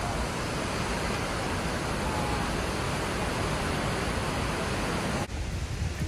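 Steady roar of a large waterfall swollen by heavy rain, a dense even rush of falling water that breaks off abruptly about five seconds in.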